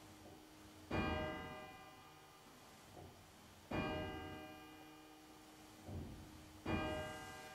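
Church bell tolled by hand on its rope: three single strokes about three seconds apart, each ringing with many tones and fading slowly, a slow mourning toll.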